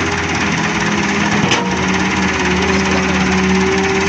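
Heavy diesel engines of an excavator and a tractor running steadily while mud is loaded, with a single sharp knock about a second and a half in.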